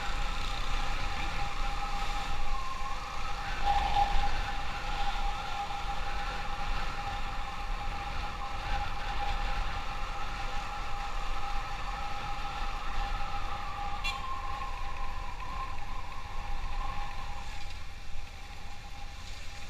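Motorcycle riding at a steady pace with wind rumble on the microphone. A steady high whine runs underneath, with a second tone above it drifting slowly up and down.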